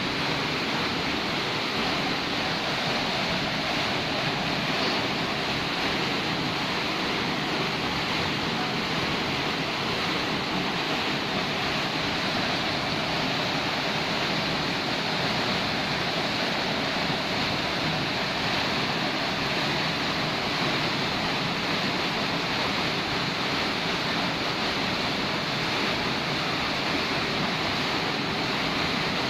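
Waterfall rushing: a steady, even wash of falling water that does not change.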